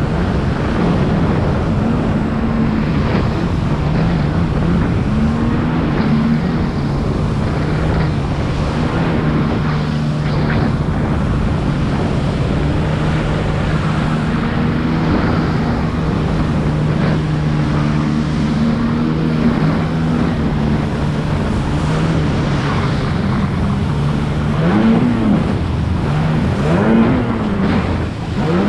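Jet ski engine running at speed, a steady drone over water rushing past the hull. Near the end the engine note rises and falls twice as the throttle changes.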